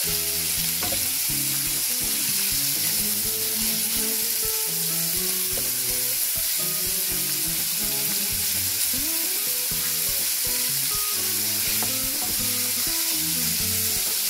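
Minced meat sizzling steadily in hot oil in a frying pan, stirred and pushed around with a wooden spatula.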